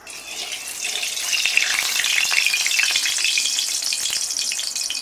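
Hot cooking oil sizzling and crackling in a metal kadai as a utensil is dipped into it. The sizzle starts abruptly and stays dense and steady.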